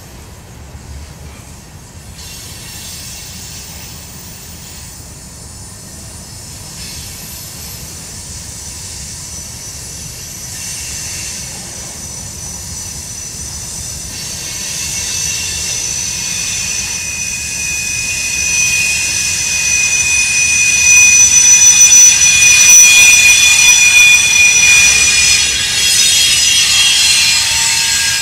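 Empty covered hopper cars of a freight train rolling past on a curve, over a low steady rumble of wheels on rails. Steel wheels squeal against the rails in several high, steady tones that start around the middle and grow louder, peaking a few seconds before the end.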